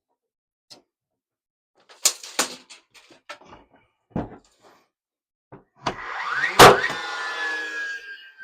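Wooden knocks and clunks of timber being handled and set down, then a louder spell of clatter about six seconds in with one sharp bang, followed by a tone slowly falling in pitch.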